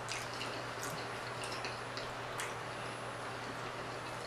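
Faint wet clicks and smacks of a person chewing food, scattered irregularly over a steady low hum and hiss.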